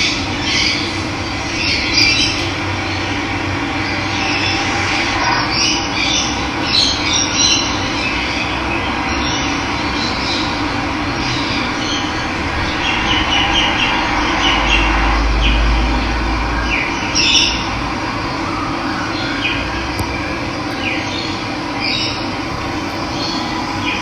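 Running water rushing steadily, with wild birds chirping over it throughout, and a brief low rumble a little past the middle.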